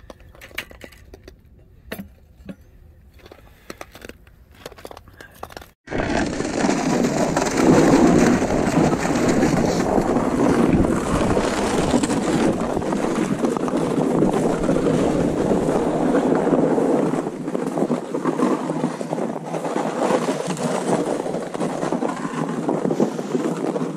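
Faint clicks and knocks for the first few seconds, then about six seconds in a sudden, loud, continuous rough scraping noise over snow-covered ice that holds to the end.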